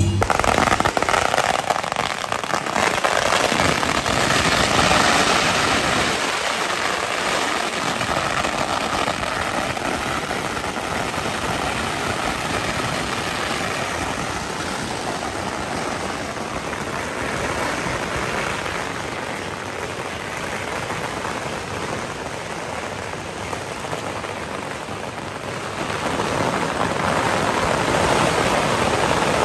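A long string of firecrackers going off in a rapid, unbroken crackle. It is loudest in the first few seconds, eases in the middle, and swells again near the end.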